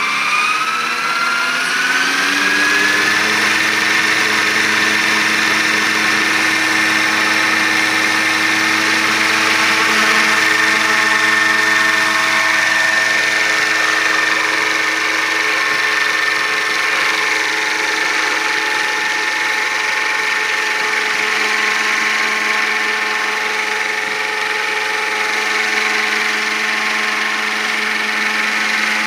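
Radio-controlled scale AS350 helicopter spooling up: its motor-and-rotor whine rises in pitch over the first three seconds or so as the head comes up to speed. It then holds steady as the model lifts off and hovers low.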